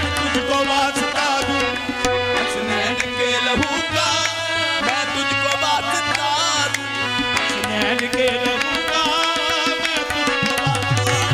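Qawwali music at a steady level: tabla playing under sustained pitched melodic accompaniment.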